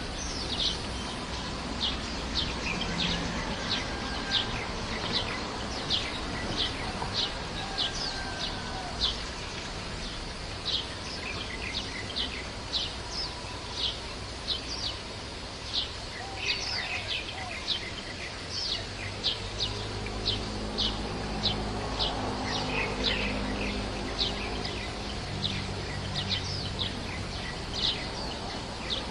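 A small bird giving short, sharp, high chirps over and over, about one or two a second, over steady background noise.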